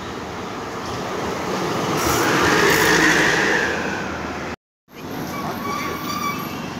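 Large passenger bus driving past close by: its engine noise and a whine swell to a peak and fade away. After a short break, steady street traffic with faint tones.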